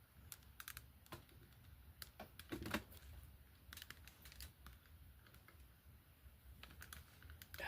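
Faint, scattered light clicks and taps of plastic LEGO pieces being handled as tower sections are set in place.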